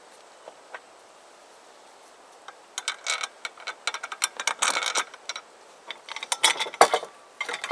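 Metal parts of a mechanics roller seat's steel frame and its bolts clicking and rattling as they are handled and fitted together, in two bursts of rapid clinks with one heavier knock near the end.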